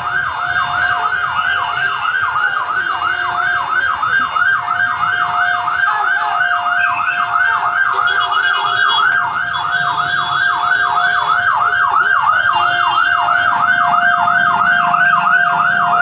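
Fire truck siren in a fast yelp, about three rising-and-falling sweeps a second, over a steady tone.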